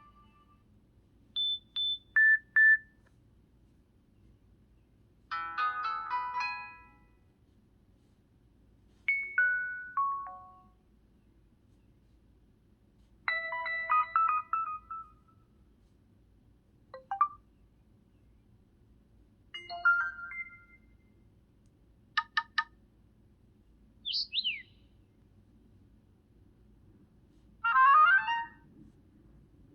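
LG Extravert 2 (VN280) cell phone playing its built-in ringtones and alert tones one after another: about nine brief electronic jingles and beep patterns of a second or two each, with short pauses between them. Among them are a quick falling sweep and, near the end, a rising run of notes.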